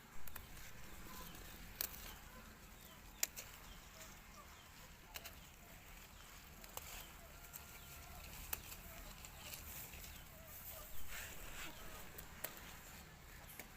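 Faint outdoor rustling with scattered sharp clicks, and a few faint short clucks of chickens.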